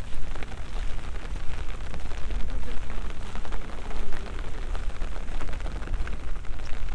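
Rain falling, with many small drop ticks over a noisy hiss, and a heavy low rumble that swells and fades unevenly underneath.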